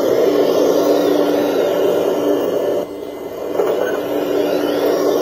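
Motors of an RC model Liebherr 970 excavator whirring steadily as it swings and works its boom and bucket into a dirt pile, dropping off briefly about three seconds in and then starting up again.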